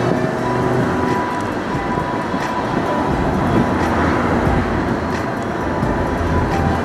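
Steady tyre, road and engine noise inside a moving car's cabin, with faint music from the car stereo.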